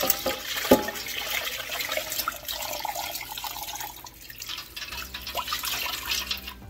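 Brine poured from a saucepan onto a raw turkey in a large stainless steel stockpot, the liquid splashing and trickling into the pot. There is a sharp knock just under a second in.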